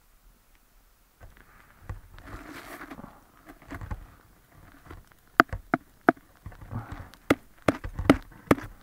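A frozen-solid leather hiking boot being handled, with rustling and crunching from about a second in. In the second half comes a run of about seven sharp, hard knocks as the rigid, iced-up boot is rapped and struck.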